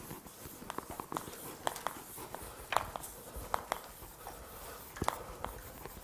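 Chalk tapping and scratching on a blackboard as a word is handwritten: a run of short, sharp, irregularly spaced ticks.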